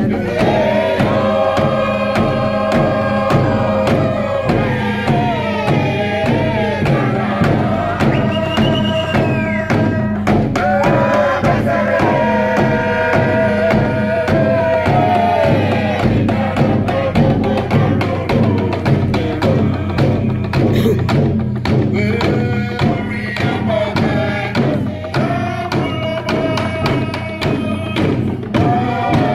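Torres Strait Islander group singing in unison a chant-like song, with held notes that slide between pitches, over a steady, driving beat on hourglass-shaped hand drums.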